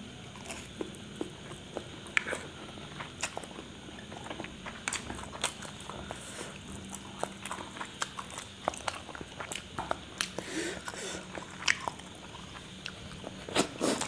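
Close-miked mouth sounds of a person eating spicy instant noodles: wet chewing and slurping with many sharp lip smacks and clicks, a few a second.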